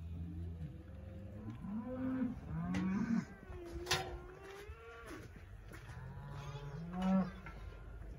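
Charolais suckling calves mooing: a string of calls from several animals, some rising in pitch, one long held call in the middle and the loudest near the end. A single sharp knock about four seconds in.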